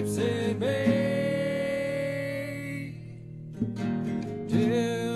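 Background music: a song with acoustic guitar and singing, with a long held note in the first half and a short dip near the middle.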